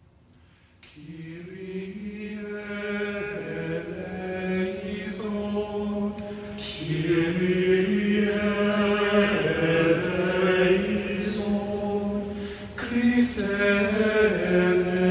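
Sung chant: voices holding long, slow notes. It starts about a second in, after near silence, and grows louder over the following seconds.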